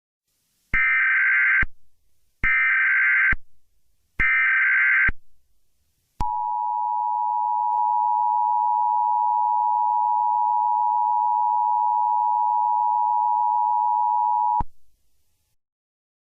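Emergency Alert System tones: three short bursts of the SAME digital header data, each just under a second long, then the EAS two-tone attention signal held steady for about eight seconds before it cuts off abruptly.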